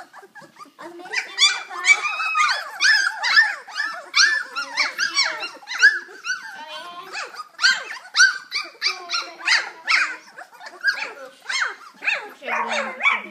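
A litter of Wirehaired Pointing Griffon puppies yipping, squealing and growling as they tussle, many short high-pitched calls overlapping one another.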